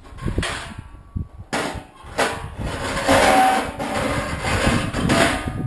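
Wind gusting on the microphone, with a few sharp cracks or knocks in the first two seconds and a louder, longer gust from about halfway through.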